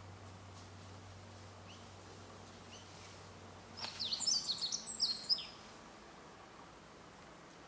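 A small songbird sings one quick, high, chirping phrase of rapid sweeping notes about four seconds in, lasting about two seconds. Under it, a faint low hum stops just as the song begins.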